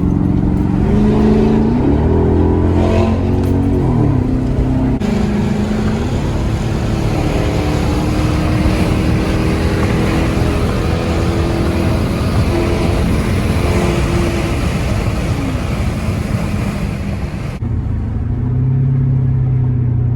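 Straight-piped Chrysler 300C Hemi V8 exhaust heard from the moving car, loud. Its pitch rises and falls over the first few seconds as it revs through the gears, then turns harsher and noisier for about twelve seconds, and near the end it settles to a lower, steady drone.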